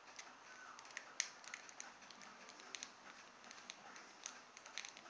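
Faint, irregular small clicks and ticks of a precision screwdriver working tiny screws out of a toy helicopter's plastic body, with a sharper click about a second in.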